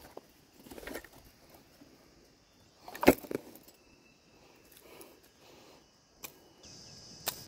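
Bags and gear being handled on dry ground: rustling with a few sharp clacks and clinks, the loudest about three seconds in and two more near the end.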